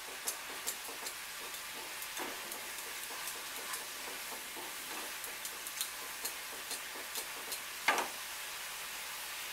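Mustard and poppy seed masala frying in mustard oil in a non-stick pan as it is stirred: a steady frying hiss with frequent small crackles, and two knocks of the wooden spatula against the pan, the louder one near the end. The paste is being fried until the oil separates from it.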